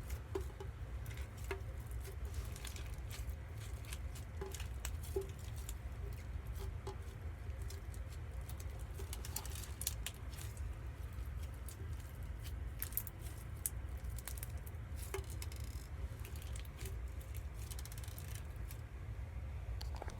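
Slime being squeezed and poked: scattered faint squishes, clicks and small pops over a steady low rumble.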